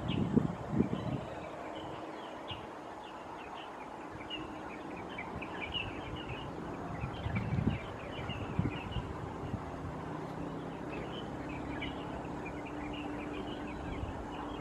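Small birds chirping in many short, high notes throughout, over outdoor background noise. A few low thumps come near the start and about halfway, and a faint steady hum sets in during the second half.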